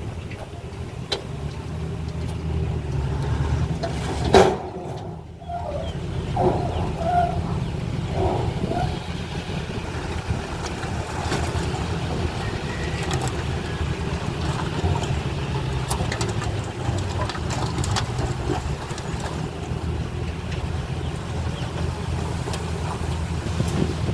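Diesel engine of heavy earthmoving machinery running steadily, with one sharp clank about four and a half seconds in.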